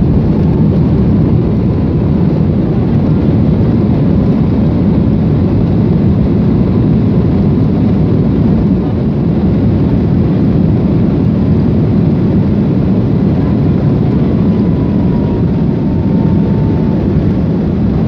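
Airliner cabin noise on the runway: a loud steady rumble of the aircraft's engines and rolling airframe, with a thin whine that dips a little in pitch near the end.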